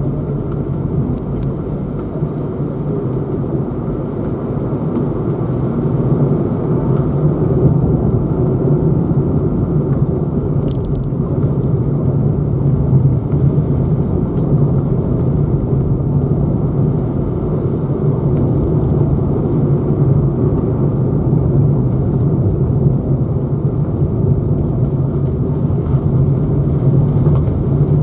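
Car driving along a road: steady engine and road noise, a low rumble that grows a little louder about six seconds in.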